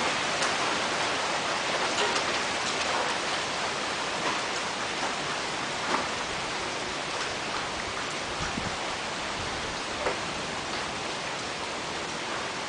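Heavy storm rain falling steadily, an even hiss with a few sharp taps of drops striking a surface, easing slightly toward the end.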